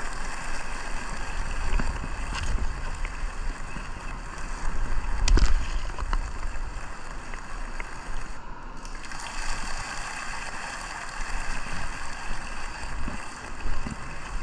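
Wind buffeting the microphone over a steady wash of shallow seawater, with a few soft knocks and splashes from wading through a rocky tide pool.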